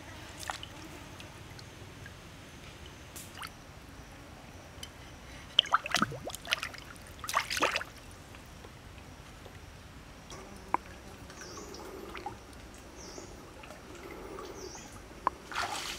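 Pond water splashing and dripping in a few short bursts, as a bamboo tray of skinned water snakes is rinsed in it.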